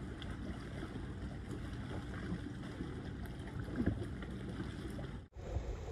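Wind noise on the microphone over small waves lapping at shoreline rocks, with a soft bump about four seconds in.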